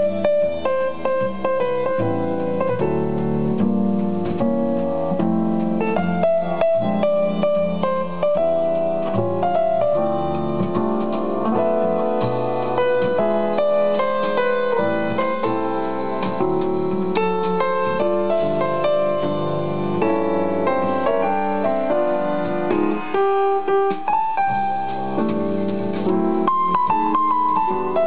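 Piano music playing through a Luxman SQ38FD valve amplifier and small Bose loudspeakers, a continuous run of changing notes.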